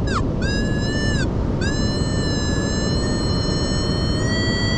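Metal detector's target tones from its speaker: a short falling beep, then two long high tones, the second held about three seconds and rising slightly, over a steady low rush of wind and surf. The detector is signalling a target with an ID of about 40, which the detectorist takes for possible jewelry.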